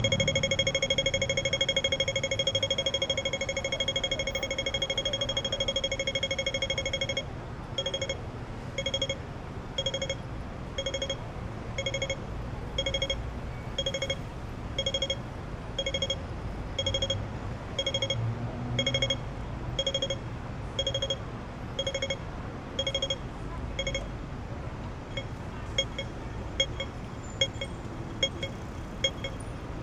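Hong Kong pedestrian crossing signal sounding over low traffic rumble: a steady electronic tone for several seconds, then slow beeps about one a second, switching near the end to fast ticking, the walk cue.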